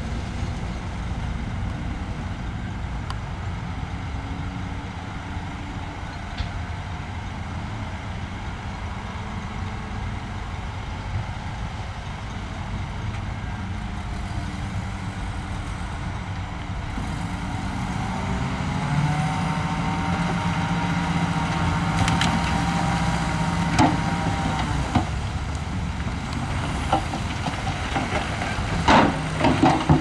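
Heavy diesel earthmoving machinery running with a steady low rumble. About two-thirds of the way in it grows louder, with a steady higher engine tone. A few sharp metallic clanks come near the end.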